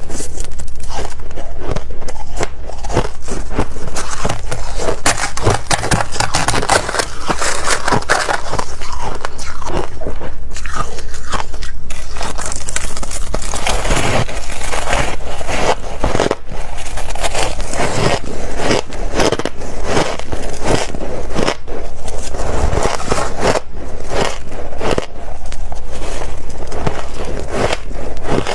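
Close-miked biting and chewing of freezer frost: loud, dense crunching and crackling of ice breaking between the teeth, bite after bite with brief pauses.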